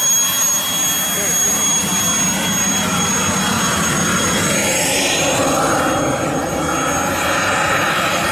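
Small turbine engine of a large-scale radio-controlled model jet running at low power as the model taxis, a steady high whine over a rushing hiss.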